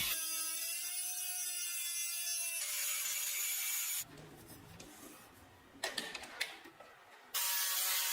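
Electric power tool running against the rusted iron of a hammer under restoration, a whine with a slightly wavering pitch. It cuts out about four seconds in, leaving a few light clicks, and starts up again near the end.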